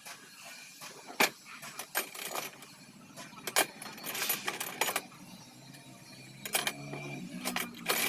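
Metal tools and starter-motor parts clicking, clinking and knocking against each other in irregular single strikes as the motor is put back together.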